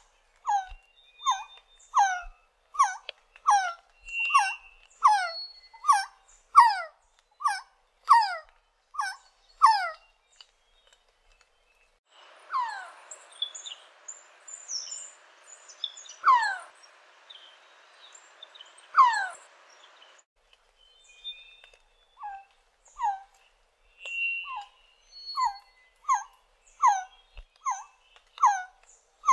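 Resplendent quetzal calling: a long series of whistled notes, each sliding down in pitch, about one and a half a second. Partway through the pace drops to three louder falling notes a few seconds apart over a steady hiss, then the quick series resumes.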